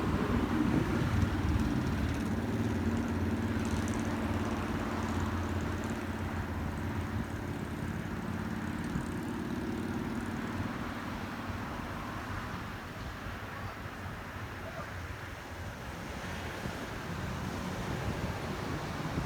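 Low engine hum of a passing motor vehicle, fading away over about ten seconds, over a steady outdoor hiss.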